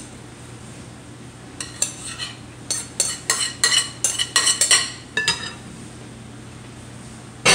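Cooked diced potatoes being tipped and scraped out of a mixing bowl into a larger glass bowl: a quick run of clinks and knocks of bowl on glass from about a second and a half in to about five seconds, with one more knock at the end.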